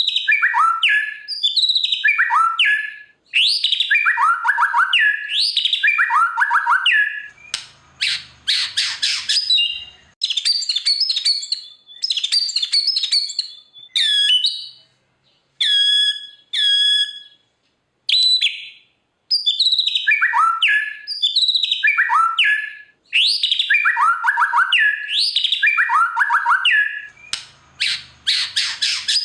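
White-rumped shama singing: repeated phrases of whistled notes that fall in pitch, mixed with short clipped notes, broken by harsh rasping stretches about eight seconds in and again near the end.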